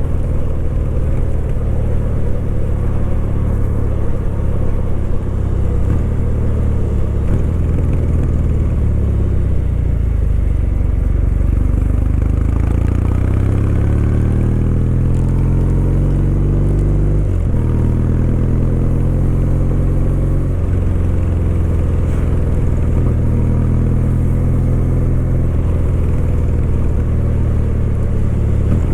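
Kawasaki W800's air-cooled parallel-twin engine running under way, rising in pitch as it accelerates, then dropping sharply at a gear change a little past halfway and pulling on steadily.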